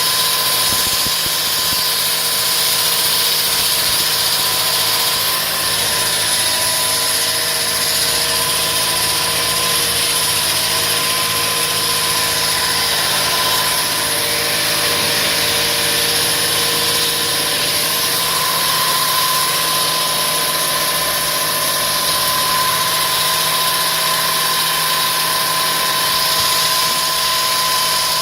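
Concrete wall saw cutting through a concrete wall: a loud, steady high whine that wavers slightly in pitch over an even hiss.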